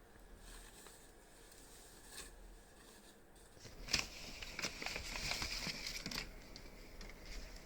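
Plastic clothing packaging being handled and opened: a dense stretch of crackly rustling from about four to six seconds in, starting with a sharp snap, then fainter handling noise.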